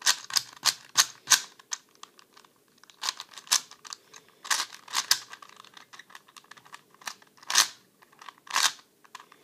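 A freshly reassembled 4x4 Rubik's cube being turned: its plastic layers clicking and clacking in irregular clusters of sharp clicks, with short pauses between turns.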